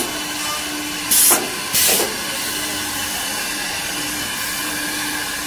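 Automatic CNC side drilling machine running with a steady hiss, letting out two short sharp bursts of air, about a second in and again half a second later.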